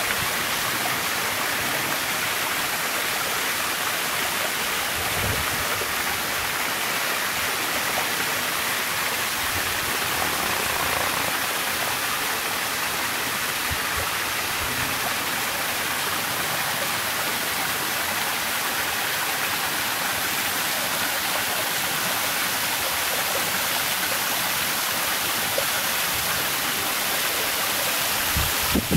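Small waterfall in full flow: an even, steady rush of water pouring down a rock face and splashing below.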